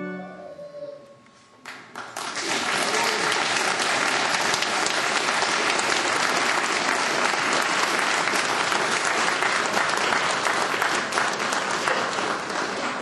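Audience applause after a choral performance. It starts about two seconds in, runs at a steady level, and begins to fade near the end.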